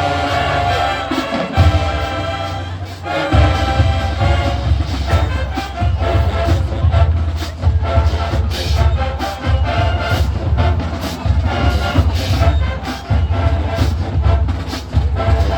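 High school marching band playing: brass holding full chords over a steady beat of bass drums and percussion.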